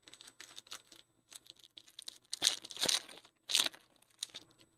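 Foil trading-card pack wrapper crinkling and tearing, with small clicks from cards being handled; the loudest rustles come about two and a half and three and a half seconds in.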